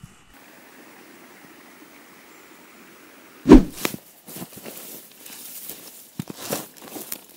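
A steel spade driven into grassy soil: a heavy thud about halfway through, then a run of crunching and scraping as the blade cuts through turf and roots.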